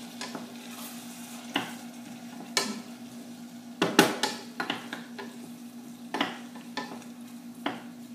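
Broad beans and onion sautéing in hot oil in a stainless steel pot, sizzling faintly, while a utensil stirs them and clinks and scrapes against the pot at irregular intervals, busiest about four seconds in. A steady low hum runs underneath.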